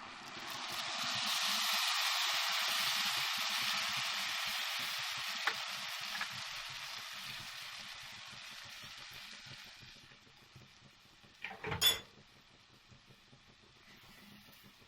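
Fresh tomato sauce hitting hot oil and fried onion, sizzling loudly at first and slowly dying away over several seconds. A short clatter comes near the end.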